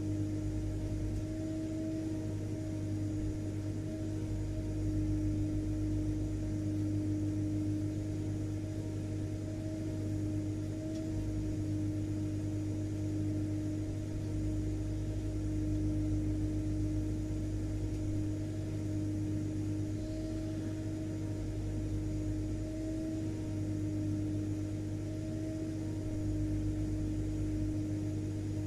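Vacuum cleaner motor running steadily: a constant whirring hum with one clear held pitch and a low drone beneath, the level swelling only slightly.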